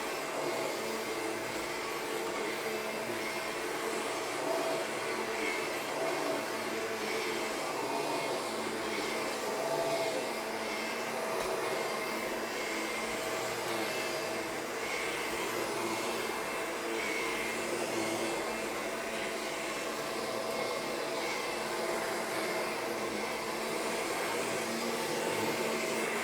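Bagged vacuum cleaner running steadily over a worn polyester carpet, a constant motor whine over the rush of airflow.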